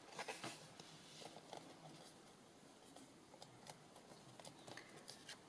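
Near silence with faint, scattered rustles and light taps of loose paper pieces being handled on a journal page.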